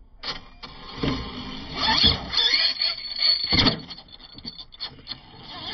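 Small RC monster truck driving on asphalt, its motor whining up and down in pitch, with several heavy knocks about a second apart and lighter clicks and rattles afterwards.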